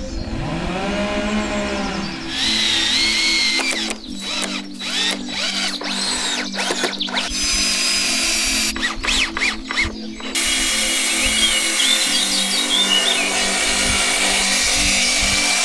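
Cordless drill running in short bursts, its whine rising and falling in pitch as it speeds up and slows, over background music with steady chords that change every few seconds.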